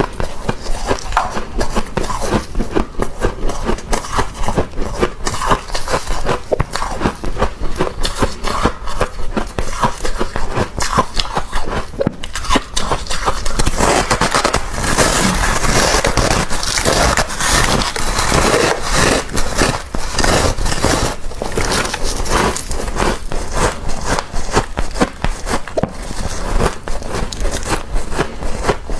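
Thick freezer frost being scraped and crushed: a dense run of crackling, crunching scrapes, thickening into a more continuous scratching about halfway through.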